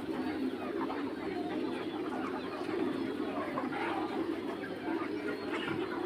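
A flock of young Mía chickens clucking and chirping, many short calls overlapping in a steady chatter.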